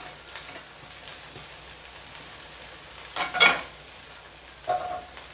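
Rice and fried fish pieces sizzling quietly in a stainless steel pan, with a loud clatter a little past three seconds in and a shorter one near the end.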